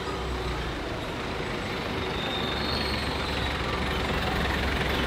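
City street traffic: a steady low hum of passing vehicles.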